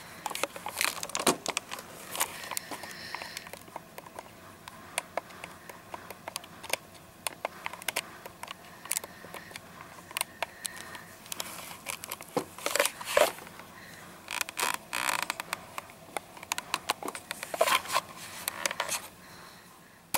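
Camera handling noise: the microphone rubbing against a cotton T-shirt and skin, with many irregular sharp clicks and bumps.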